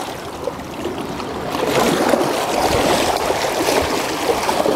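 River water rushing and lapping against rocky shoreline boulders, a steady wash of noise that swells slightly about two seconds in.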